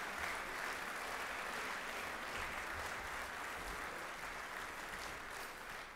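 Banquet audience applauding steadily, a dense even clapping that fades slightly before stopping.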